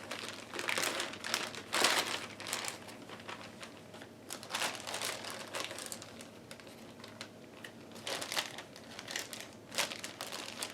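Plastic anti-static bag crinkling as a motherboard is handled, in irregular rustles, the loudest about two seconds in.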